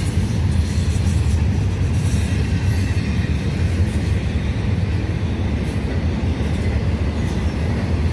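Intermodal freight train cars rolling past close by, a steady heavy rumble of wheels on rail.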